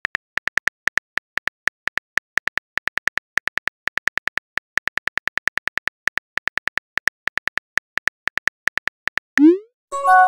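Rapid taps of a texting app's on-screen keyboard click sound as a message is typed, several taps a second. Near the end a short rising whoosh marks the message being sent, followed by the start of a chiming message alert.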